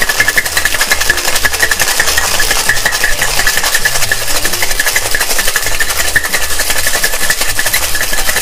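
Ice cubes rattling inside a closed stainless-steel cocktail shaker shaken hard with the drink: a loud, fast, unbroken rattle, the shake that chills and dilutes the cocktail.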